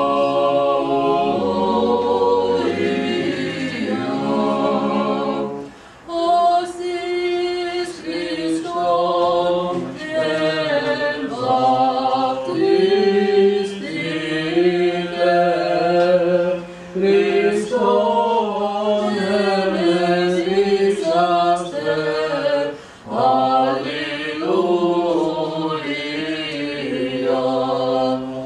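Small mixed choir of men and women singing an Orthodox liturgical hymn a cappella in held chords, with short breaks between phrases.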